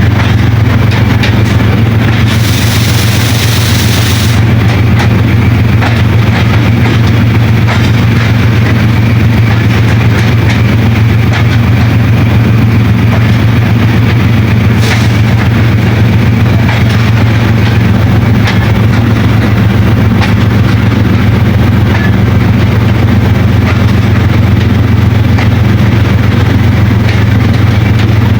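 Diesel locomotive engine running loud and steady with a deep drone, with a brief hiss about two seconds in.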